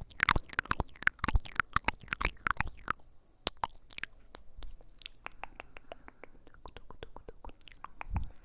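Close-miked ASMR trigger sounds: a dense run of sharp, crackly clicks for about three seconds, then sparser single clicks.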